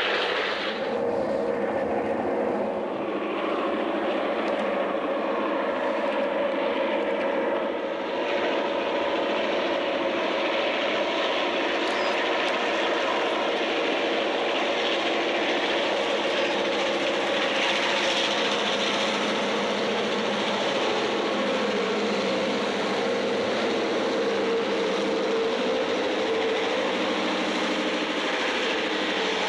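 Diesel passenger train running, a steady drone with rail noise. The engine sound grows stronger near the end as the Rio Grande Ski Train's EMD F9 cab-unit diesel locomotives come by.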